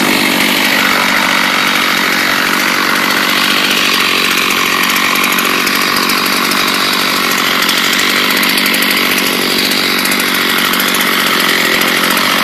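Gas chainsaw's two-stroke engine running steadily, its speed holding even without revving up or down.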